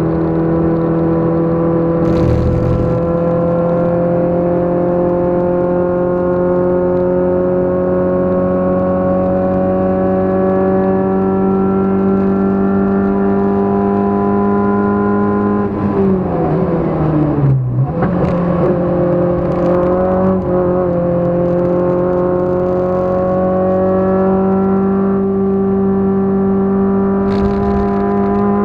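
Race car engine heard from inside the cabin, pulling hard with its pitch climbing slowly and steadily. About halfway through the revs drop away over a couple of seconds, jump back up, and run on steady, slowly climbing again. Two brief hissing rushes come, one early and one near the end.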